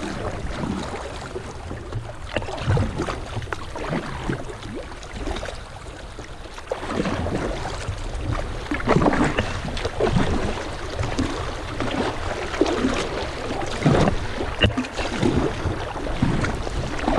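Shallow river riffle rushing over rocks around a kayak, with irregular splashes of water against the hull and paddle, over a steady low rumble. The water grows louder about seven seconds in.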